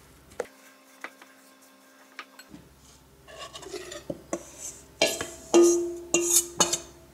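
A spoon scraping and knocking against a metal mixing bowl as flour is tipped out of it into a glass bowl, with the metal bowl ringing after the knocks. Before that, only a few light clicks of a spatula in the glass bowl.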